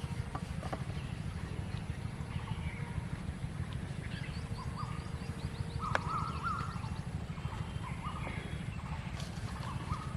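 Outdoor field ambience: birds chirping in short, repeated calls over a steady low rumble, with a quick run of high chirps near the middle.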